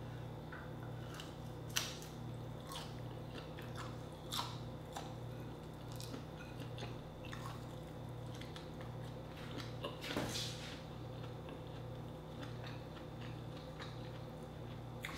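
Close-up chewing of grilled shrimp and rice, with wet mouth smacks and scattered short clicks, the loudest about two, four and ten seconds in. A faint low hum pulses steadily underneath.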